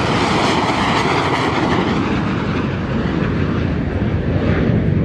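Loud, steady jet engine noise from a pair of Sukhoi fighter jets flying past in formation, a little stronger near the end.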